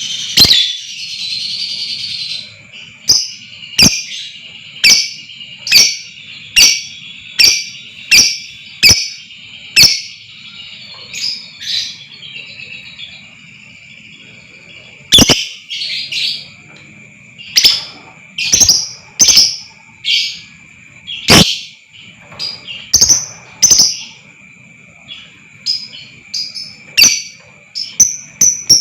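Lovebirds calling in sharp, loud chirps, mostly about one a second, with a quieter gap in the middle, over a steady high-pitched trill.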